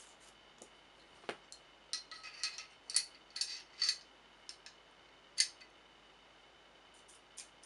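Stainless steel parts of a Beretta 92FS Inox pistol being handled and fitted together during reassembly: small metal clicks and scrapes, bunched in the middle, with one sharper click about five and a half seconds in.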